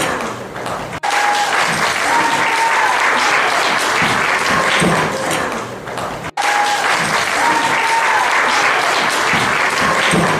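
Applause from a crowd, a loud steady clapping clip that cuts out abruptly about a second in and again a little past the middle, then restarts, as if looped.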